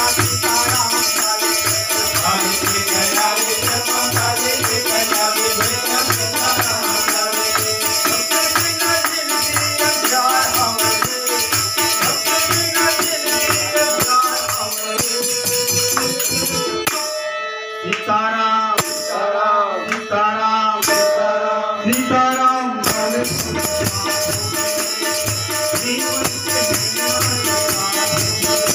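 Devotional bhajan music: harmonium, hand drum and jingling manjira hand cymbals keep a steady rhythm under a singing voice. About 17 s in the cymbals and drum drop out for several seconds while the voice and harmonium carry the melody alone, then the full group comes back in.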